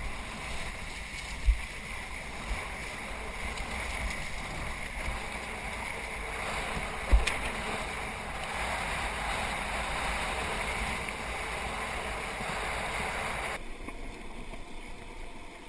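Water rushing and splashing along a kayak on the open sea, with wind on the action camera's microphone. Two sharp low thumps sound about a second and a half in and about seven seconds in. The noise drops abruptly near the end.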